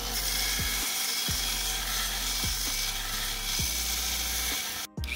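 Bench belt sander grinding the end of a steel tube, a steady abrasive rasp of metal on the belt that drops out briefly near the end.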